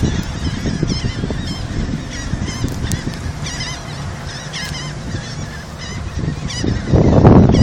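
A flock of seagulls calling, many short overlapping cries over a low steady rumble. A loud rushing noise sets in near the end and covers the calls.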